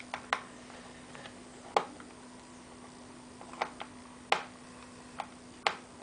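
Small screwdriver clicking and tapping against screws and the plastic underside of an Ergo M5200N laptop as its base screws are driven back in: about seven sharp clicks at irregular intervals, over a faint steady hum.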